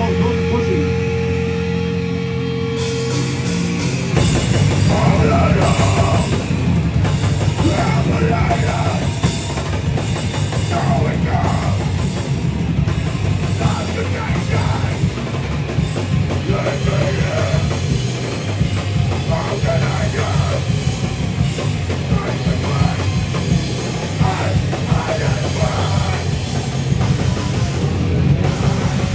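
Heavy metal band playing live: a held note rings for about three seconds, then the full band with drum kit comes in loud and dense.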